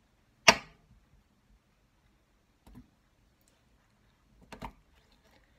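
A knife knocking on a chopping board as tomatoes are cut: one loud sharp knock about half a second in, a faint one near the middle, and a quick double knock near the end.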